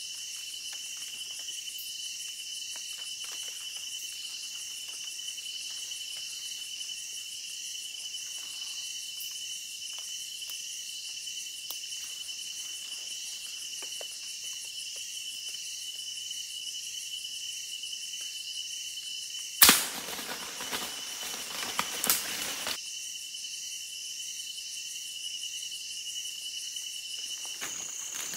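Night insect chorus of crickets and other insects: a steady high trill with a faster pulsing buzz above it. About two-thirds of the way in, a single loud sharp crack is followed by a few seconds of rustling noise and a few lighter knocks.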